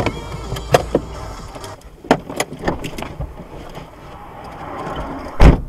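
A run of sharp clicks and knocks inside a stopped car over a low hum, then one loud, deep thump near the end.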